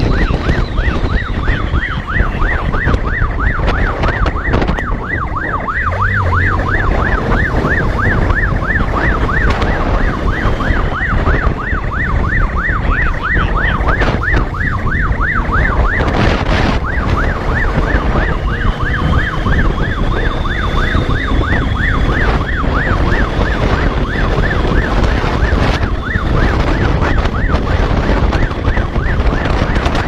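Brazilian police motorcycle siren in a fast warble, its pitch sweeping up and down several times a second, over a steady low rumble of road and wind noise.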